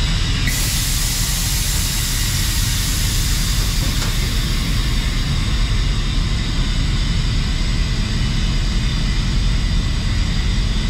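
Compressed air hissing steadily through the step-deck trailer's air-suspension valve as the sliding-axle airbags are overinflated, starting about half a second in and easing slightly in the second half, over a steady low rumble.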